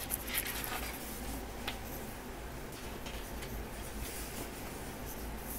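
Pages of a thick photobook being handled and turned: soft paper rustling with a few light ticks near the start and another a little later.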